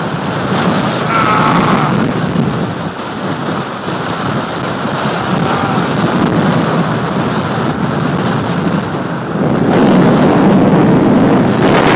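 Very strong wind buffeting the camera microphone: a loud, steady rumbling noise that grows louder about ten seconds in.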